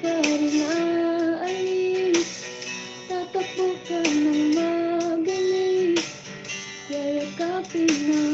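A woman singing a slow song into a microphone, holding long notes, over strummed guitar accompaniment.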